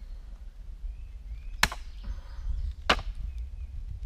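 Hatchet chopping a cherry-wood branch on a stump chopping block: three sharp blows about a second and a quarter apart, the last right at the end.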